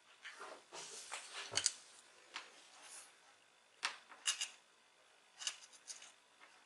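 Handling noise from a two-core parallel wire being worked in the fingers: soft rustling of the plastic insulation, with several sharp clicks and ticks spread through, the sharpest about a second and a half in and around four seconds in.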